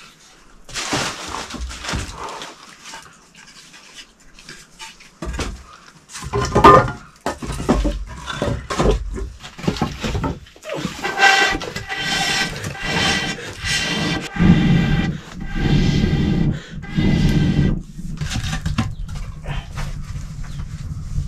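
An animal calling: a series of drawn-out pitched cries in the second half, after scattered knocks and handling noises.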